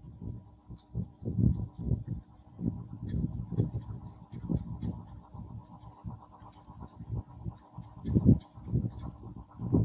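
Marker strokes on a whiteboard: soft, irregular scrapes and taps, strongest about eight seconds in. Over them runs a steady, high-pitched, rapidly pulsing insect-like chirring.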